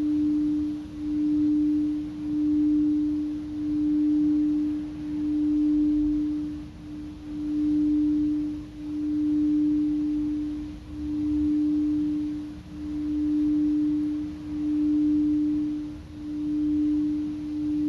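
Singing bowl held at one sustained low tone with no fresh strikes, as when played around the rim. The tone swells and fades in a slow, even pulse about every two seconds.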